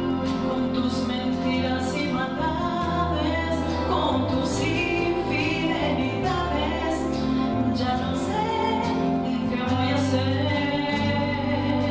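A woman singing a song into a handheld microphone over instrumental accompaniment, her voice holding and gliding between notes above steady bass notes.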